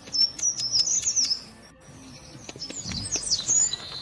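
Birds chirping: a quick run of short, high notes in the first second and a half, then scattered high calls toward the end.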